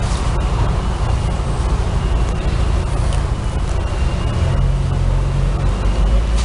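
Steady motor-vehicle and traffic noise, with a low engine rumble that grows stronger about four and a half seconds in.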